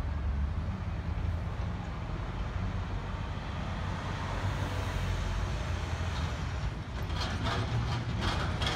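Trucks and cars running across a railway level crossing: a steady low engine and road rumble, with a run of sharp rattling clicks in the last couple of seconds.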